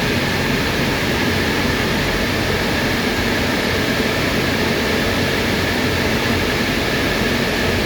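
Cooling fans of many Bitmain Antminer bitcoin miners running together inside a mining container: a loud, steady rush of air with a thin, steady whine above it.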